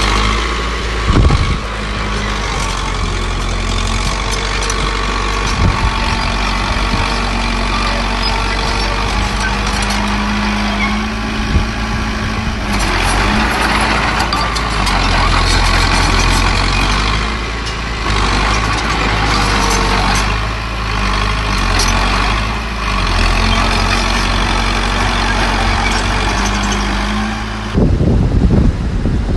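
Heavy diesel machinery, a small bulldozer and dump trucks, running steadily with a deep engine hum and a few short knocks or clanks; the low rumble changes abruptly near the end.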